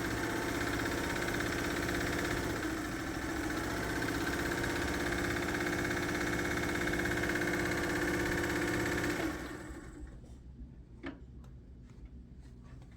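Freshly oiled 1946 Singer sewing machine running steadily under its motor, dipping briefly about three seconds in, then stopping abruptly about nine seconds in. A few faint clicks follow.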